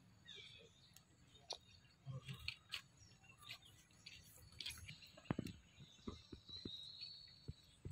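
Near silence: faint outdoor ambience with a few short high chirps falling in pitch near the start, scattered light clicks and rustles, and a thin high steady call near the end.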